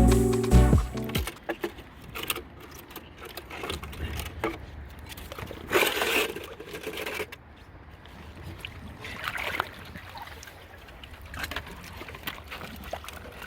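Water trickling and splashing, with scattered small knocks and a couple of brief louder splashes; background music fades out in the first second.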